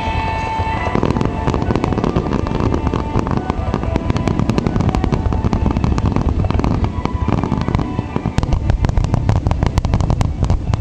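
Fireworks bursting in a continuous barrage of booms and dense crackling, the crackle thickest about eight to ten seconds in, with music playing underneath.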